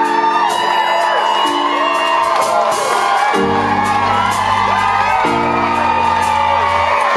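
Live band's intro: long held chords that change twice, under a crowd cheering and whooping as the singer comes on stage.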